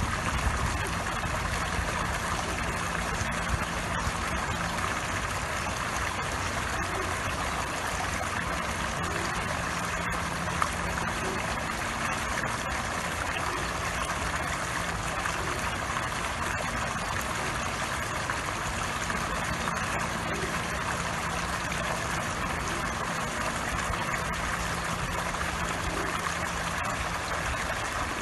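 Pond fountain jet spouting from a squirrel statue and splashing steadily onto the water surface, with a low steady hum underneath.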